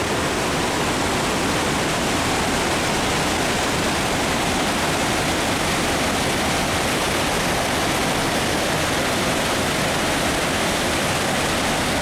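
Stream water pouring over a rock ledge in a small cascade: a steady, even rush of falling water.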